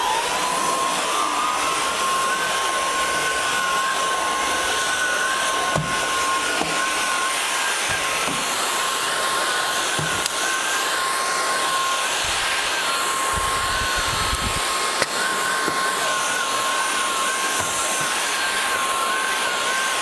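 INSE S610 cordless stick vacuum running steadily while vacuuming carpeted stairs: a steady high motor whine with a second tone above it that wavers as the floor head is pushed over the carpet, and a few soft low knocks.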